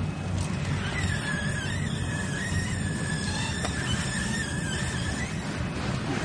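Packaging-line belt conveyor running with a steady low hum. A thin, steady high whine comes in about a second in and stops around five seconds in.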